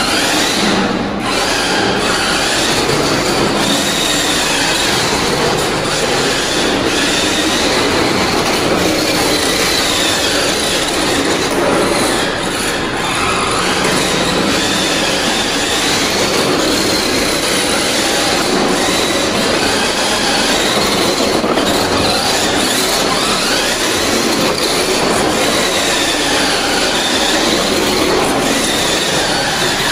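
Toy RC rally car's electric motor and gear drive whining continuously as it drives on a hard floor, the whine rising and falling in pitch with the throttle.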